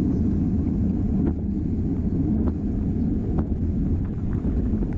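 Steady low rumble of wind buffeting an action camera's microphone on a moving racing bicycle, with a few faint ticks.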